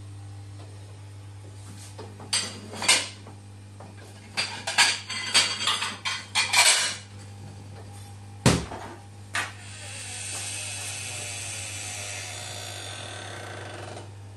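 A run of sharp clinks and knocks, like dishes or utensils being handled, then two separate knocks, the first of them the loudest. A steady hiss follows for the last few seconds, over a low steady hum.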